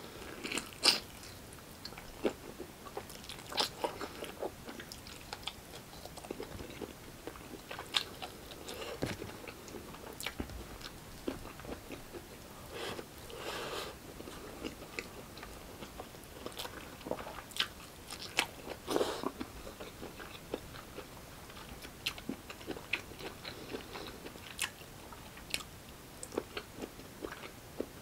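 Close-miked chewing and biting of pork hock kare-kare and rice: irregular sharp wet clicks and short mouth sounds, the loudest about a second in.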